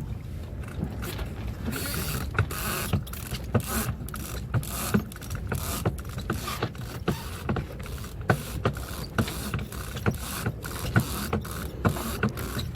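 Sailboat winch ratcheting as the halyard is cranked in under load to hoist a person up the mast, its pawls giving a steady series of sharp clicks.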